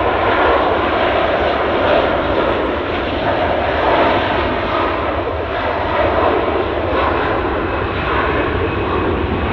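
Jet engines of a departing Airbus A330-243, its Rolls-Royce Trent 700 turbofans at takeoff power: a loud, steady noise.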